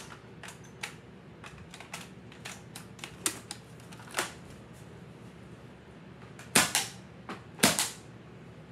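Light plastic clicks and taps of Nerf blaster parts and foam darts being handled, with two louder quick double clacks near the end.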